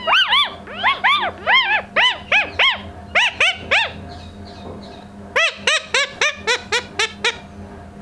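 Rose-ringed (Indian ringneck) parakeet calling: a string of about a dozen short, shrill calls that each rise and fall in pitch, a pause of about a second, then a faster run of shorter calls.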